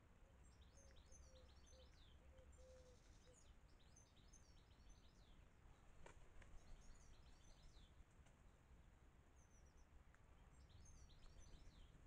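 Faint songbird song: short phrases of quick, high chirping notes repeating every second or two, with a brief row of lower, even notes in the first few seconds, over a low outdoor rumble. A single faint click about six seconds in.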